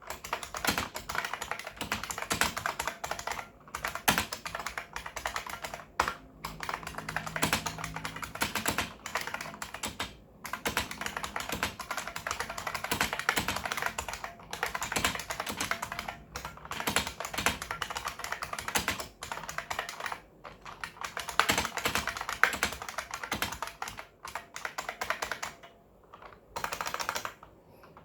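Continuous fast typing on an IBM Model M 51G8572 buckling-spring keyboard, a dense run of sharp key clicks with short pauses between bursts and a longer break near the end.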